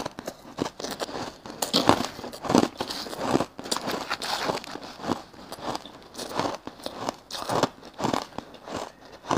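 Crushed shaved ice crunching between the teeth as it is chewed, a steady run of crisp crunches about two a second, with a metal spoon digging through the ice in a plastic tub.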